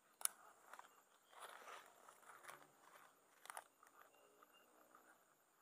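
Mostly near silence, with one sharp click just after the start and a few faint clicks and rustles from the handling of a baitcasting rod and reel.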